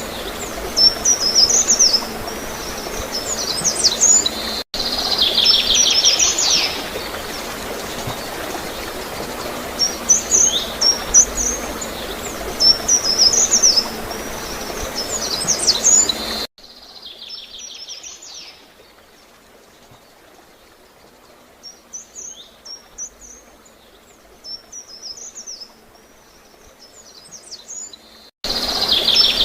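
Songbirds singing short, repeated chirping phrases every couple of seconds, with a chattering trill now and then, over a steady hiss of gurgling water. A little over halfway through, the whole sound drops suddenly much quieter, then jumps back up just before the end.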